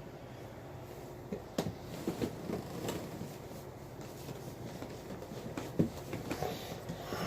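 A cardboard mailer being handled and worked open by hand: scattered taps, knocks and rustling of the cardboard, with a sharper knock or two.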